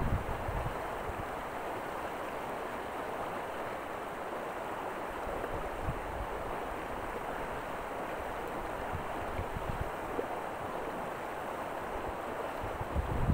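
Steady rushing of river water flowing, with faint low wind rumbles on the microphone now and then.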